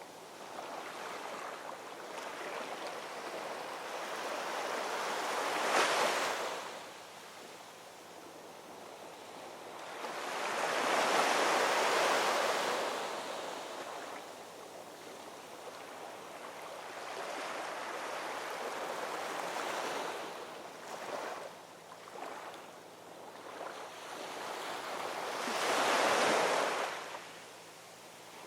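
Ocean waves rolling in and breaking: a steady wash of surf that swells to a peak as each wave breaks and then fades, with three larger waves, about six seconds in, around eleven to thirteen seconds in and near the end.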